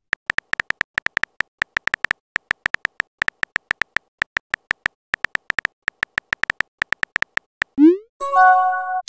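Texting-app keyboard typing sound effect: a rapid, irregular run of short, identical high electronic ticks, about six a second, as a message is typed out. Near the end a quick rising swoosh and a short bright chime follow as the message is sent.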